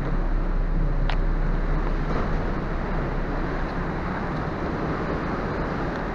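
Steady low hum of the Ogasawara Maru passenger ferry under way, with wind and the rush of sea water along the hull.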